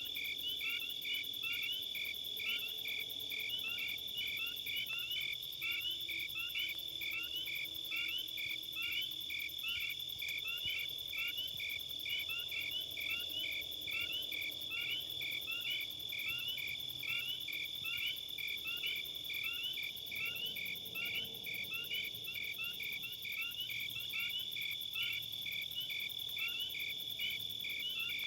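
Insects chirping: a continuous high trill with a steady run of short rising chirps, about two a second.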